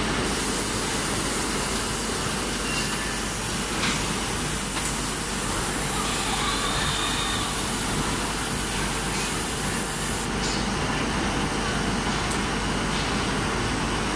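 Steady industrial din of a hot coil-spring making line running as a red-hot steel bar is fed along its roller conveyor. A high hiss runs alongside and cuts off about ten seconds in.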